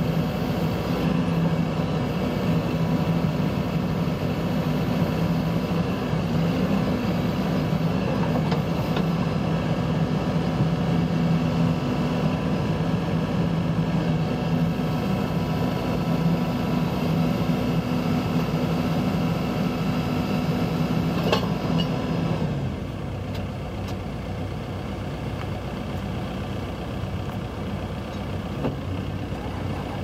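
2015 Caterpillar 416F backhoe loader's diesel engine running steadily at raised speed, then settling back to a lower, quieter idle about three quarters of the way through. There is one sharp knock just before it drops.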